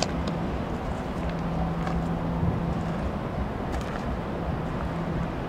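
Norfolk Southern diesel locomotive engine running with a steady low hum.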